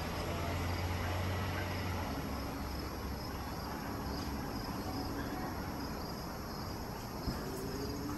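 Insects chirping steadily outside, a faint repeating high trill, over a low steady rumble. A light knock comes near the end.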